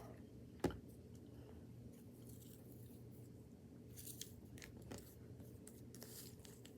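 Faint handling noises: a single sharp knock just under a second in, then scattered soft clicks and rustles over a low steady hum.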